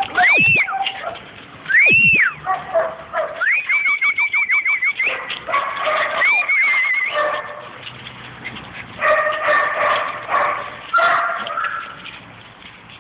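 Spaniel puppies whining and yelping: two high whines that rise and fall in pitch near the start, a quick string of yips around four seconds in, and longer, lower whines later on.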